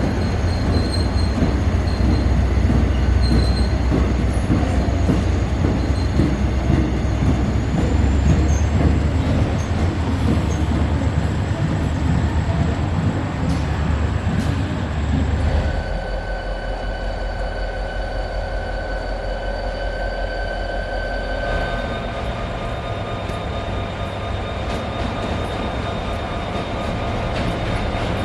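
A train running past on the station tracks, a heavy rumble for about the first fifteen seconds, then a quieter stretch with several steady high tones like wheel squeal or motor whine.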